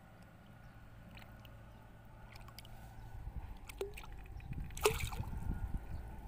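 Water splashing and sloshing as a hooked black carp thrashes at the surface: quiet at first, building from about halfway, with a few sharp splashes, the loudest about three-quarters of the way in.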